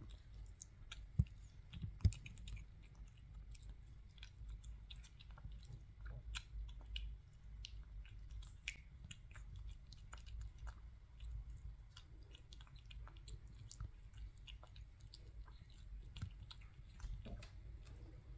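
British shorthair kitten chewing raw minced meat: many small wet clicks and smacks of its mouth, with two louder knocks about one and two seconds in.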